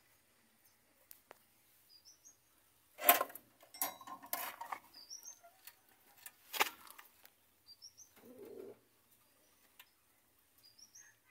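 Rattling and rustling in a wire-mesh rabbit cage as rabbits and a hand move about inside, with a few sharp knocks, the loudest about three seconds in and another near the middle. In the background a small bird chirps faintly every second or two, each a short rising note.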